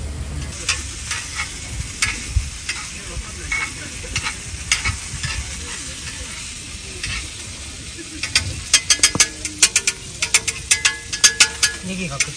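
Food frying on a tabletop grill pan: a steady sizzle with scattered crackles and pops, which turn into a quick run of sharp pops and spatters about eight seconds in.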